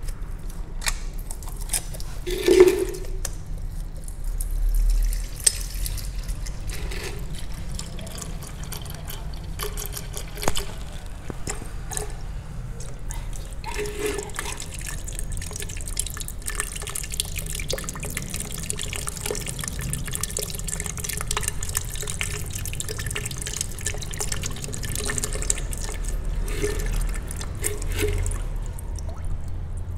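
Green engine coolant draining from a Yamaha R15's coolant drain point, trickling and splashing into a plastic jug and onto the floor. A single knock sounds about two and a half seconds in, with scattered small clicks throughout.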